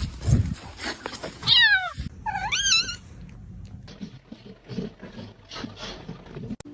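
A cat meowing twice, one falling call and then a longer rising-and-falling one, about a second and a half in, followed by soft rustling and light ticks.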